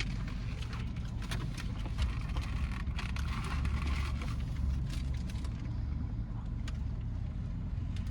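Steady low rumble of a car's running engine heard inside the cabin, with scattered clicks and rustling from about one to five seconds in.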